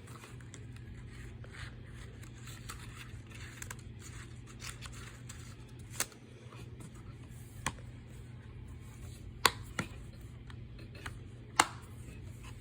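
Hands handling a plastic movie case: faint scraping and rustling, with about five sharp clicks in the second half, over a steady low hum.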